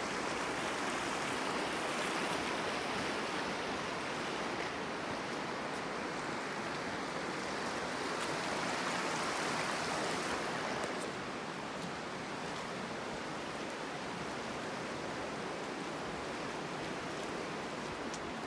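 River water rushing by, a steady hiss of flowing water that drops slightly in level about eleven seconds in.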